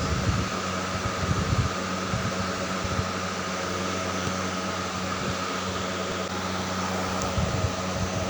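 Steady hum of an electric fan running, with a few soft low bumps, most of them in the first two seconds.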